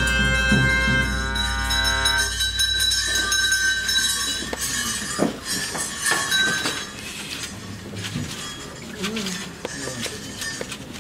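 Ritual music with a steady held note from a wind instrument that stops about two seconds in, followed by bells jingling and clinking, with a few sharp strikes and voices in the crowd.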